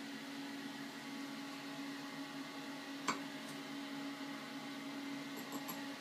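Steady low hum with a faint hiss, and a single sharp click about three seconds in as a chrome shower valve's knobs are turned by hand.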